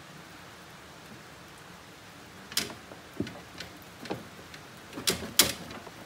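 A lawn tractor's factory seat being worked loose on its sheet-metal seat pan and base plate: several sharp clicks and knocks in the second half, the loudest near the end, over the steady hiss of rain.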